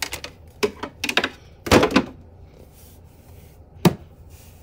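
Handling noise of dolls and a hand on a shelf: a quick run of clicks and taps, a longer clatter a little under two seconds in, and one sharp knock near the end.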